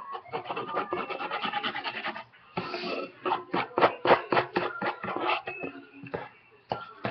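A stirring utensil scraping thick homemade slime (body wash and shampoo) around a mixing bowl in quick repeated strokes, with a brief pause about two seconds in.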